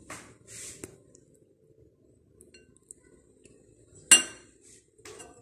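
Metal tongs and a ladle clinking and scraping against a ceramic bowl of saucy chicken feet adobo. A few light clinks come near the start, and one sharp, ringing clink about four seconds in is the loudest.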